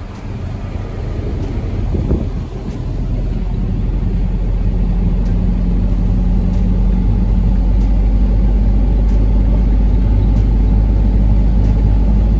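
Road vehicle engine running, a low drone that builds over the first couple of seconds and then holds steady and loud.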